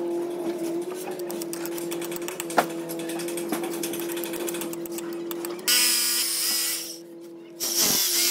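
Light irregular tapping, then an electric drill boring into the concrete column in two runs: it starts suddenly almost six seconds in, stops about a second later, and starts again near the end.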